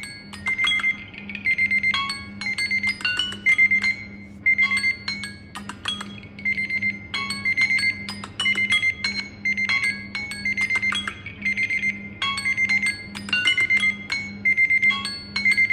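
Several smartphones ringing at once: overlapping melodic ringtone and alarm tones with a repeating high beep, over a steady low hum.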